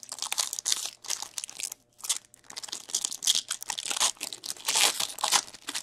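Foil wrapper of a pack of hockey trading cards being torn open and crinkled: irregular crackling, with a short pause about two seconds in.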